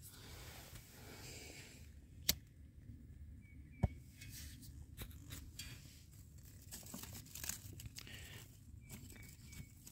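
A lighter clicked twice to light a coffee-filter tinder bundle, followed by rustling and light crackling as dry paper and wood shavings are handled, over a steady low wind rumble on the microphone.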